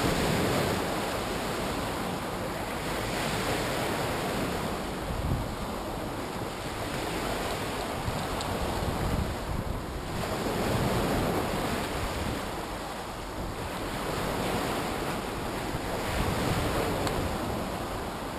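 Sea waves breaking and washing onto the shore, swelling and ebbing every few seconds, with wind buffeting the microphone.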